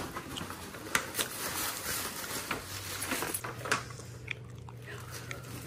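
Tissue paper and a paper gift bag rustling and crinkling in an irregular run of crackles as hands dig through the bag.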